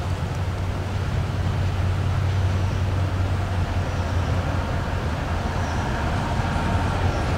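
Approaching train with a steady, low diesel engine rumble and rail noise.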